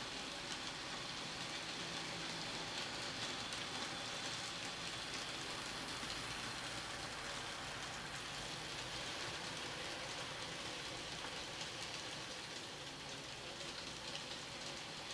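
N-gauge model freight train running around a tight curve of TOMIX track. Its small wheels rolling on the rails make a steady hiss with light, scattered clicks.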